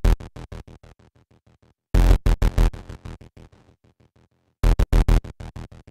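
Electronic intro music made of rapid stuttering pulses, about eight a second. Each volley starts loud and dies away, then restarts about every two and a half seconds.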